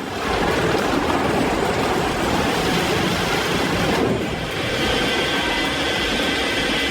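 Cambio 800 log debarker running as logs feed through and its carbide tools strip off the bark: a steady, loud mechanical noise. About four seconds in, a faint high whine joins it.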